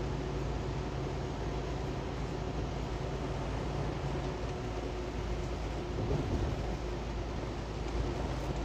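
Steady drone of a semi-truck's engine and tyres on a rain-soaked highway, heard from inside the cab, with a constant low hum under an even rush of road and spray noise.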